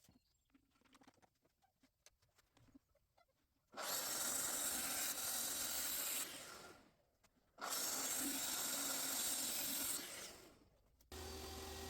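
A power tool run twice, about two and a half seconds each time, each run trailing off as the motor winds down. A steadier, quieter sound with a low hum starts near the end.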